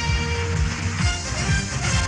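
Instrumental music with a steady drum beat, about two beats a second, under sustained keyboard chords.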